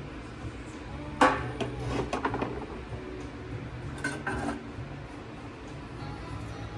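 Hard objects clattering and clinking together, like dishes or metal ware being handled: one sharp clatter about a second in, a run of lighter clinks after it, and another short cluster of clinks near the middle.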